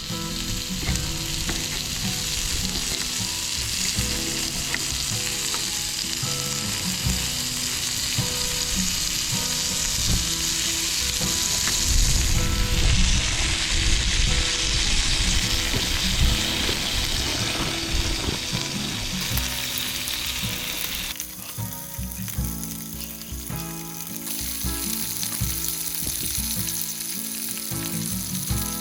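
Steak sizzling as it cooks over heat, a dense crackling hiss. It grows louder through the middle, and the high hiss drops away about two-thirds of the way through.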